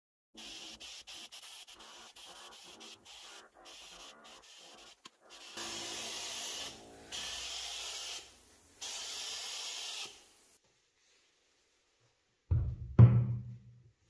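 Workshop restoration sounds: a run of short rubbing or scrubbing strokes, then three bursts of steady hiss that cut in and out sharply, then a single heavy low thud near the end.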